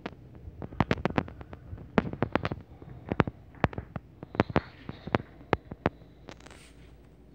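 Handling noise: a string of sharp, irregular clicks and knocks, some in quick runs of two or three, as the camera is handled and moved around the rifle and its scope mount.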